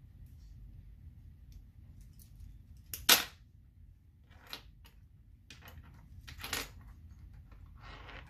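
Small beads and metal charms clicking and rattling as they are handled on a table: a few short bursts of clicks, the loudest about three seconds in.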